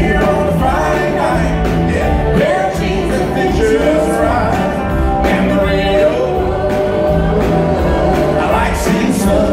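Live band with a horn section playing an upbeat song, with singing over drums, bass and guitar.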